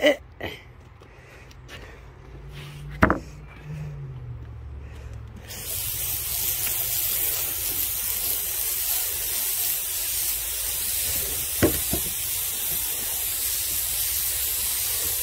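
A low hum fades over the first few seconds, with a sharp click at about three seconds. About five and a half seconds in, a steady spraying hiss starts suddenly and keeps on, with a faint click or two.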